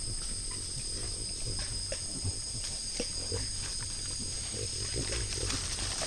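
White-lipped peccaries grunting low while feeding, with scattered small clicks and crunches from chewing and rooting at the food.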